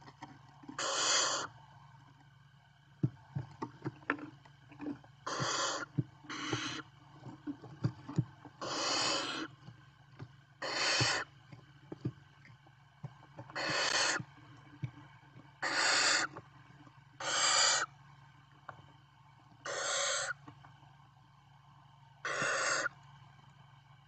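Barn owl chicks giving hissing, snore-like begging calls, about ten in all, each lasting around half a second to a second, spaced a second or two apart. Sharp clicks come between the calls in the first third, over a steady low hum.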